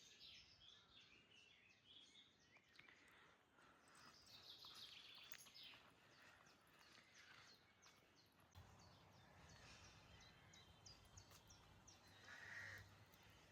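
Faint birdsong, with scattered chirps and short high calls, and a low steady hum joining about two-thirds of the way through.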